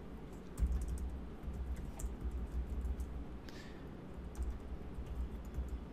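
Typing on a computer keyboard: a run of quick, irregular key clicks as digits are entered, with a low rumble underneath.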